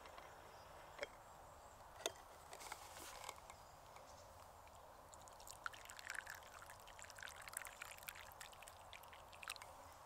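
Two light clicks from the lid of a metal camp pot, then liquid poured from the pot into a wooden kuksa cup, splashing and trickling for about four seconds.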